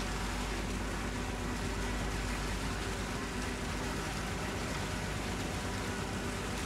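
River cruise ship Konstantin Fedin's diesel engines running steadily with a low drone, mixed with a steady rush of churned water as the ship manoeuvres close by.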